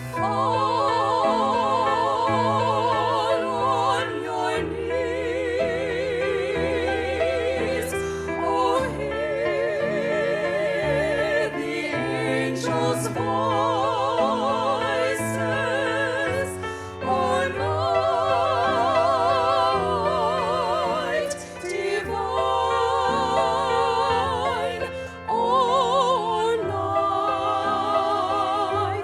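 Classical-style singing with a wide vibrato on long held notes, phrase after phrase, over sustained low accompaniment, as part of a Christmas concert performance.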